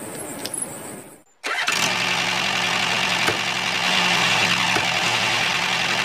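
Small bricks clicking as they are set into a toy trailer by hand, then, after a brief break, small DC motors running steadily with a low hum and a high whine.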